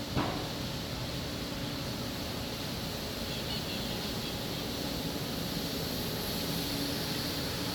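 Steady outdoor background noise, an even hiss at a constant level, with one short sharp knock just after the start.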